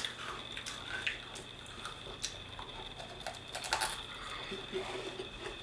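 Mouth sounds of eating crisp meringue cookies made with edible crickets: scattered small crunches and wet clicks, with a quick cluster of crunches near the end.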